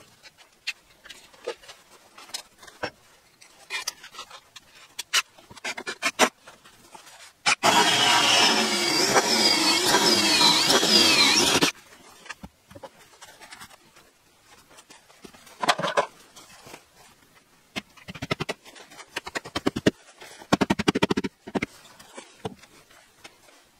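Cordless drill running under load for about four seconds, its pitch wavering, as it works through the door frame into the wall. Scattered clicks and knocks of handling around it, and a quick run of clicks near the end.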